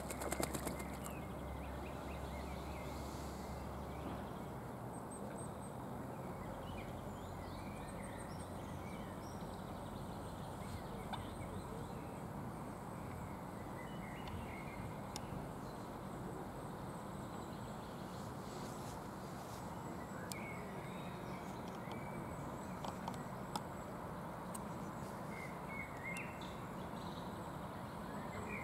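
Outdoor pond ambience: a steady background hiss with short, scattered bird chirps now and then.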